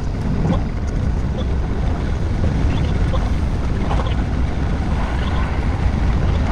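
Keihan 3000 series electric train running at speed, a steady rumble of wheels on the rails with a few faint brief squeals.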